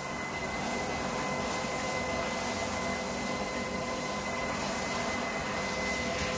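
Handheld shower head spraying water onto a wet puppy's coat in a bathtub to rinse out shampoo: a steady rushing hiss with a faint steady whine under it.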